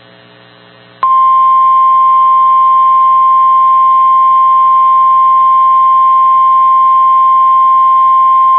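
NOAA Weather Radio 1050 Hz warning alarm tone: a single steady high beep that starts about a second in and holds, over a faint low hum. It is the alert tone that comes before a weather warning or watch broadcast.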